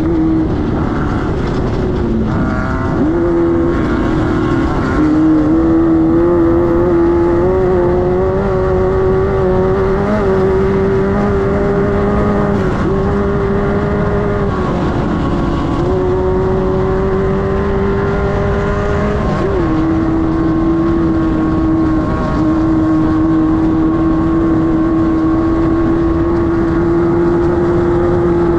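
Air-cooled 1600 cc Volkswagen engine of a class 5-1600 race car running hard at high revs. The note climbs slowly and dips briefly about six times, over a steady rough noise from the car.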